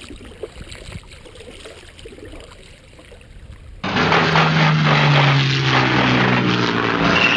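Faint, quiet sounds at first. About four seconds in, a loud steady motor drone begins abruptly, with a slowly drifting hum, buried in heavy rushing wind noise.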